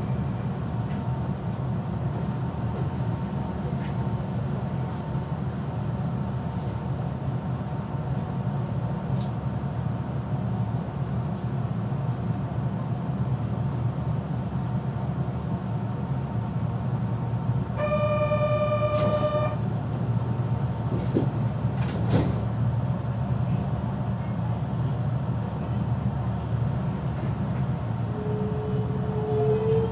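Kobe Electric Railway train running, a steady low rumble. About two-thirds of the way through, a held pitched tone sounds for about a second and a half, and near the end a whine rises in pitch.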